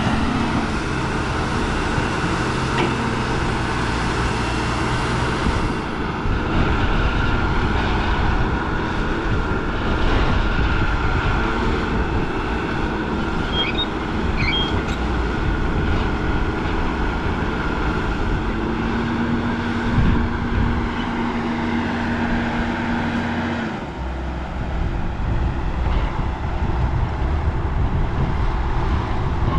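Heavy diesel earthmoving machinery running steadily, its engine note shifting abruptly about six seconds in and again near the end.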